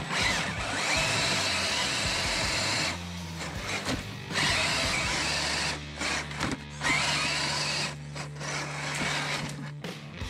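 Redcat Gen8 RC crawler's electric motor and gears whining in stretches that cut off and start again as the throttle is worked, while the truck crawls through mud and slush. Background music with a steady bass line plays throughout.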